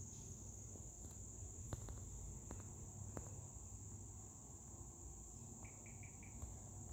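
Faint, steady high-pitched trill over quiet room tone during a pause in speech, with a few soft clicks and four quick short blips near the end.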